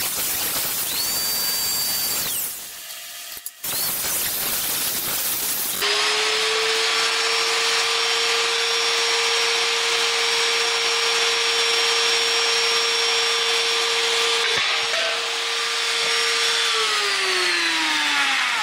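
Electric die grinder with an abrasive drum grinding steel, enlarging a laser-cut hole in a steel plate. There are a few short bursts of grinding with brief breaks, then a steady high whine that winds down with falling pitch near the end.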